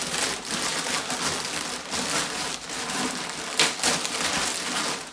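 Plastic wrapping of an IKEA pillow crinkling and crackling as it is gripped, pulled and torn open by hand, with irregular sharp crackles throughout.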